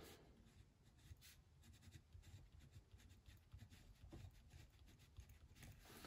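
Faint scratching of a pen writing on a paper workbook page, in short irregular strokes.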